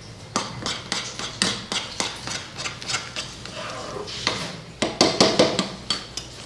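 Metal spoon stirring thick oatmeal porridge in a small metal pan, with repeated scrapes and clicks of the spoon against the pan. The knocks are louder about five seconds in.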